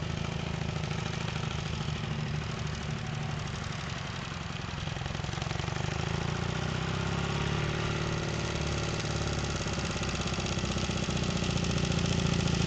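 Motorcycle engine running steadily at low speed as the bike is ridden around, a little quieter about four seconds in and growing louder near the end.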